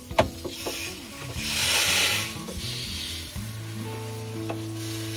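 Water hissing from a hose spray nozzle onto the parts of an engine bay, rinsing off foaming engine cleaner; the spray comes in surges, loudest about two seconds in. A sharp click about a quarter of a second in is the loudest sound. Background music plays under it.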